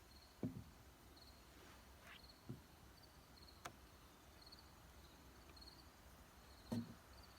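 Near silence with faint insect chirping, short high chirps about twice a second, and a few soft knocks, the loudest near the end.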